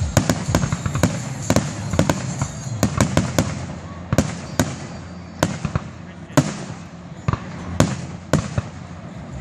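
Fireworks display: a quick, irregular run of sharp bangs and crackles from aerial shells bursting. The bangs come thickest in the first three seconds and grow more spaced out after that.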